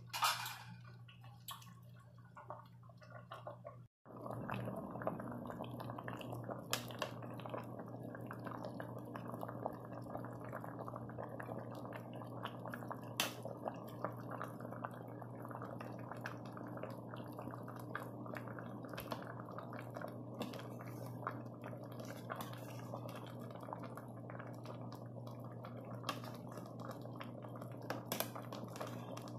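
Pot of mushroom soup boiling in an aluminium stockpot: a steady, dense bubbling with many small pops, over a low steady hum. At the very start a metal ladle clinks once against the pot.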